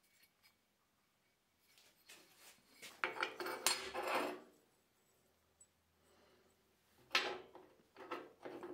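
A broken aluminium band saw part being set down and handled on a metal work surface: a cluster of clattering knocks about three seconds in, then a sharp knock and a few lighter taps near the end as the broken-off piece is fitted against it.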